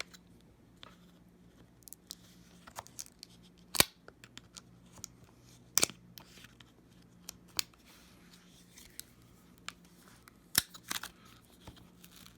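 Scattered small clicks and taps of a tool prying at plastic parts inside an open MacBook Pro, with three sharper snaps about four, six and ten and a half seconds in.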